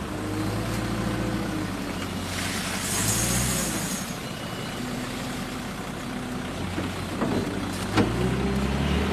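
A vehicle engine running at low speed, its pitch shifting up and down several times, with a short hiss about three seconds in and a single sharp knock near the end.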